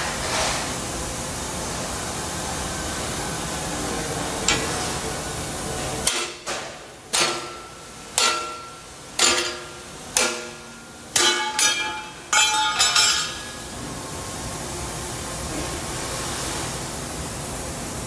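Hammer striking a small laser-welded steel tab on a steel welding table, about a dozen sharp metallic blows with a short ring after each. The blows come in uneven groups over about seven seconds in the middle, bending the tab over. A steady hiss runs underneath before and after the blows.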